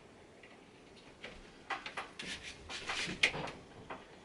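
Plastic clicks and rubbing as the 24-pin ATX power cable is handled and pushed into the PC motherboard's socket, with one sharp, loud click a little after three seconds in.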